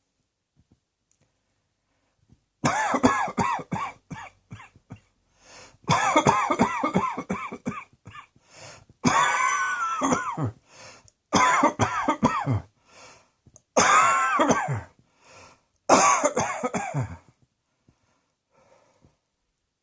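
A person coughing in six fits of rapid, voiced coughs, starting a few seconds in and stopping a couple of seconds before the end, with quieter breaths between the fits.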